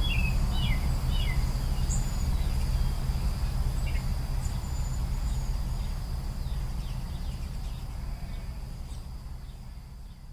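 Woodland ambience: birds chirping in short, quick notes, thickest in the first couple of seconds and then sparse, over a steady high insect drone and a louder low rumble of background noise. The whole scene fades out gradually over the last few seconds.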